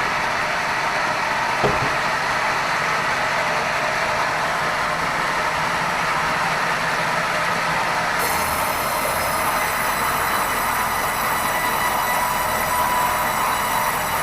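Sawmill band saw running steadily, with a single knock about two seconds in. About eight seconds in, a high-pitched whine with many overtones sets in and holds, as the blade works through red meranti timber.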